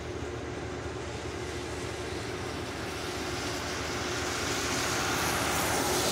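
A car approaching and passing on a wet road. The hiss of its tyres on the wet pavement swells over the last few seconds as it draws level.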